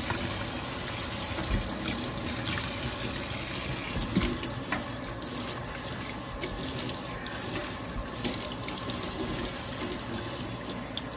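Kitchen faucet running steadily into a stainless steel sink while a small dog is washed by hand under the stream, with a few light knocks.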